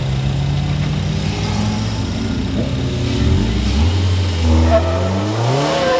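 Ariel Nomad's Honda four-cylinder engine running steadily, then revving up with a rising pitch from about three seconds in as the car pulls away.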